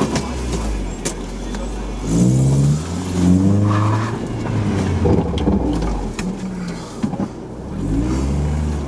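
Car engine revving, heard from inside the cabin: the pitch climbs sharply about two seconds in, holds, and climbs again near the end.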